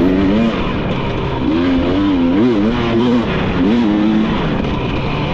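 Dirt bike engine revving up and down as the throttle is worked while riding, its pitch rising and falling every second or so, with brief drops in between, over a constant rushing noise.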